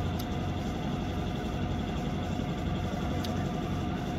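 An engine running steadily: a low rumble with a constant hum, and two faint clicks.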